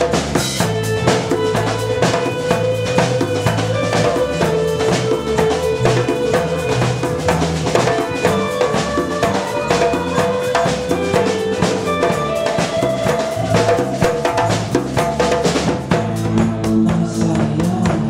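Live band playing a drum-driven passage: drum kit with bass drum and snare, congas, electric guitar and electric bass.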